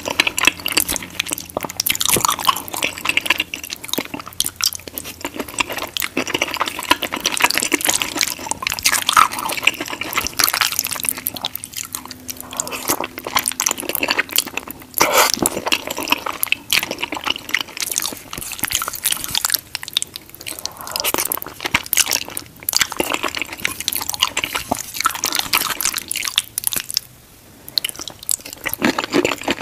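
Close-miked wet chewing and slurping of creamy white-sauce pasta with shrimp, full of small sticky mouth clicks and smacks. The sound stops briefly for about half a second near the end.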